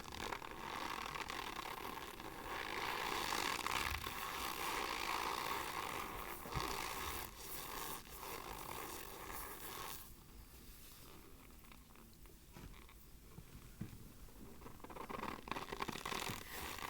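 Argo cornstarch being crunched close up: a dense, crackly, squeaky scraping that comes in waves, easing off for a few seconds past the middle and picking up again near the end.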